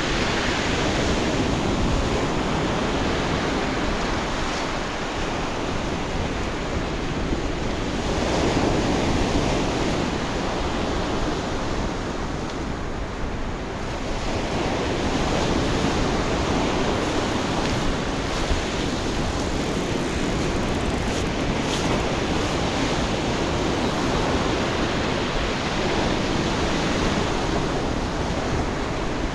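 Sea surf breaking and washing up a sand-and-pebble beach: a steady rush that swells as waves break, about 8 seconds in and again about 15 seconds in.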